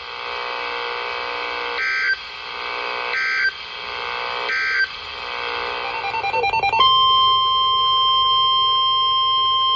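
NOAA Weather Radio alert signalling: several rasping bursts of the digital SAME code that heads a new warning, followed about seven seconds in by the steady 1050 Hz warning alarm tone.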